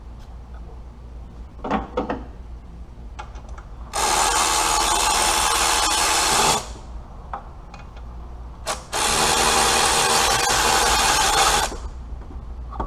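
Handheld power tool run twice in steady bursts of about two and a half seconds each, its motor whining at an even pitch, with a few small metallic clicks before the first burst.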